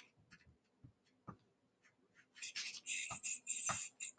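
Faint scattered small clicks and taps, then paper rustling from a little past halfway as a glued paper cutout is handled and laid onto construction paper.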